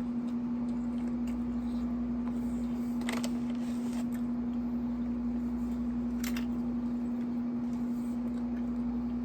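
A steady hum from a room air conditioner, with two short crunches about three seconds apart as rippled potato chips are bitten.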